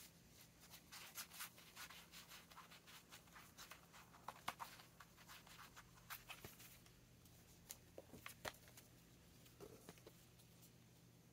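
Near silence with faint, scattered clicks and rustles of paper swatch cards being leafed through and handled, over a very faint steady low hum.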